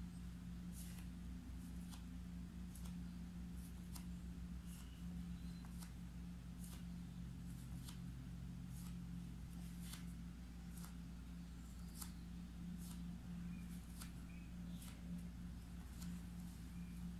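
Light taps of a paintbrush handle's tip pressing dots of black acrylic onto cotton fabric stretched taut in a wooden embroidery hoop, about one faint tap a second, over a steady low hum.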